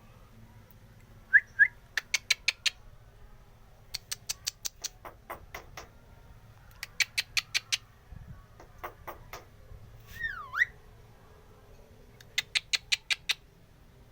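A jalak (starling) of the 'manggut-manggut' kind calling in bursts of sharp, rapid clicks, four or five at a time, with two short rising whistles near the start and one swooping whistle that dips and rises about ten seconds in.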